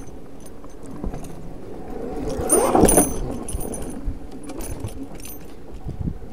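Zero FX electric enduro motorcycle ridden over a rough dirt track: steady rattling and clicking from the bike, with a louder burst of noise about two and a half seconds in.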